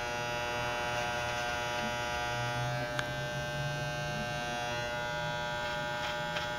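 Electric hair clippers running with a steady buzz, with a single click about halfway through.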